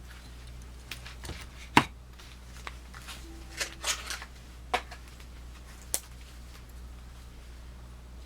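Victorinox Swiss Army knives being handled: a scatter of sharp clicks and knocks, the loudest about two seconds in, with a few lighter ones up to about six seconds in.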